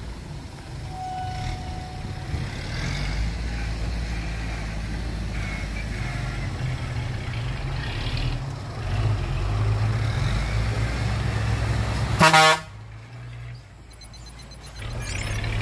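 Hyundai dump truck's diesel engine running as the truck drives up the dirt track and closes in. About twelve seconds in the truck's horn gives one short, loud toot.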